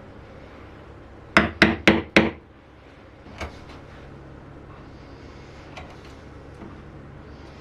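Four quick blows on wood about a quarter second apart, then a single lighter knock about a second later, and a few faint clicks near the end.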